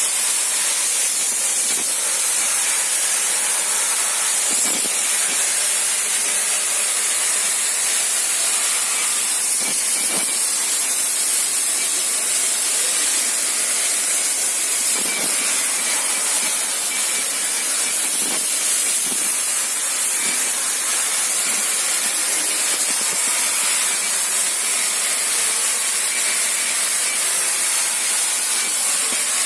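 Robosal 5 CNC plasma cutter's torch cutting, a steady, high hiss of the plasma arc and its air jet.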